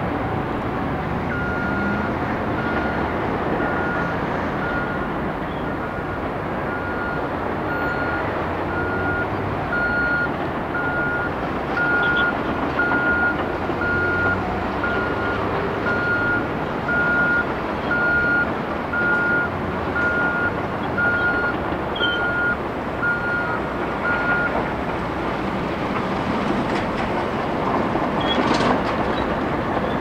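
Heavy diesel engines of a wheel loader and semi dump trucks running, with a backup alarm beeping steadily about once a second; the beeping stops a few seconds before the end. A brief louder rush of noise comes near the end.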